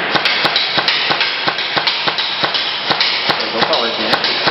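Airsoft gun firing a rapid, irregular string of sharp shots, about four to five a second, over a steady hiss.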